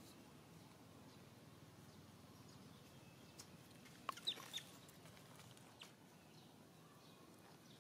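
Faint outdoor background with a brief cluster of short, high-pitched animal chirps about four seconds in and one more a little later.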